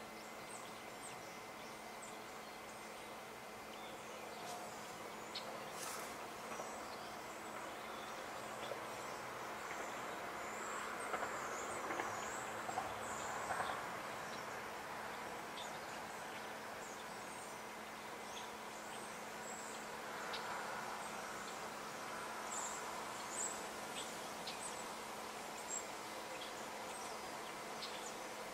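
Outdoor summer ambience with a buzzing insect near the microphone, growing louder twice, and scattered faint, very high, short chirps.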